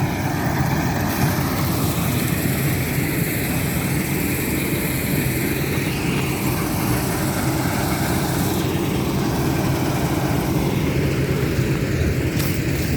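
Combine harvester at work cutting oats: a steady engine drone with a constant rushing hiss from the cutting and threshing. Near the end, a quick run of sharp clicks.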